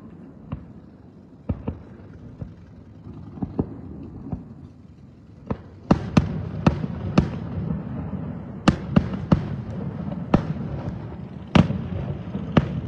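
Fireworks display: scattered sharp bangs, then from about six seconds in a denser rumble with more frequent, louder reports.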